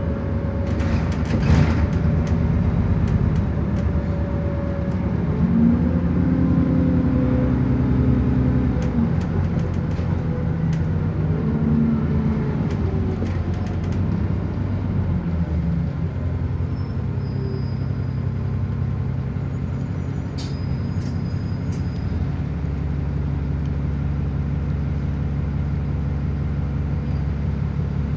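Bus engine and drivetrain heard from inside the passenger saloon while the bus is under way: a steady low drone whose pitch rises and falls several times in the first half as the bus speeds up and changes gear, then settles into a steadier run. A sharp knock sounds about a second and a half in.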